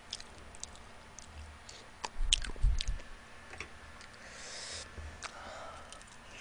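Close-miked chewing and small mouth clicks while eating sauced fried chicken wings, with a short cluster of louder knocks and clicks about two to three seconds in.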